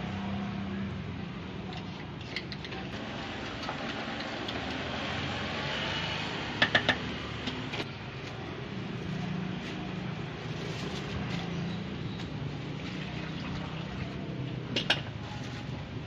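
Drink-stall packing sounds over a steady low background hum: plastic bags, cups and containers being handled. A quick run of three sharp clicks about halfway through is the loudest sound, and a single click comes near the end.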